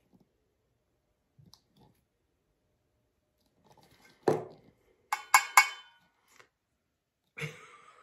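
Handling noises from a glitter-coated metal tumbler: a knock about four seconds in, then three quick, sharp taps with a faint metallic ring, and another knock near the end. They come from the tumbler being turned and tapped over the work surface while loose glitter falls off.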